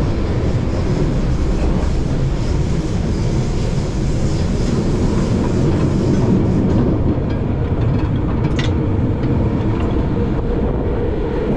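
Subway train running underground: a steady, loud rumble of the wheels on the rails and the car body, heard from inside the carriage. A single sharp click comes about eight and a half seconds in.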